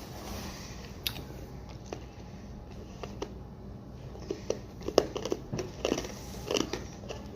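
Quiet room with scattered faint clicks and soft knocks, then a cluster of short pops and taps about four to seven seconds in.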